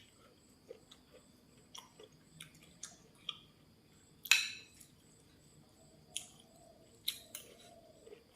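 Close-up eating sounds: soft, scattered chewing clicks, with one louder bite or crunch about four seconds in.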